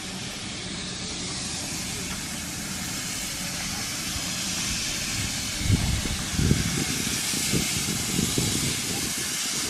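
Steady hiss of escaping steam from a steam locomotive standing with its train, growing slightly louder, with irregular low rumbles from about halfway through.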